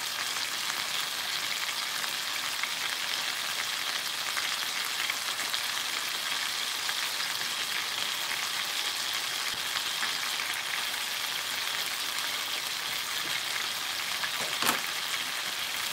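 Chicken thighs sizzling steadily in soy sauce liquid in an uncovered frying pan, the sauce bubbling as it cooks down. One light click about a second before the end.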